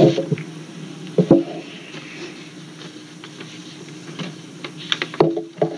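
Room sound of an old lecture recording in a pause between sentences: a steady low hum with scattered small clicks and knocks, and brief low voice sounds at the start, about a second in, and near the end.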